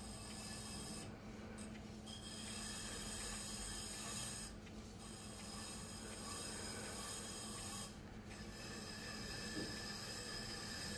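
Electric pottery wheel running with a steady hum while a trimming tool scrapes a bone-dry clay pot spinning on it: a soft, continuous rasp that lets up briefly a few times.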